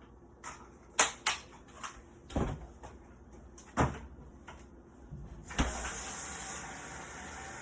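A few sharp kitchen knocks and clunks, like a cupboard door and things being handled, the loudest about a second in; then about five and a half seconds in a kitchen tap is turned on and water runs steadily into the sink.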